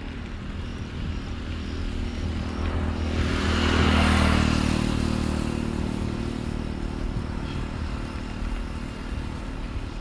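A motor vehicle passes, its engine and tyre noise swelling about three seconds in, loudest around four seconds, then fading away. Underneath, steady low wind and road rumble from riding.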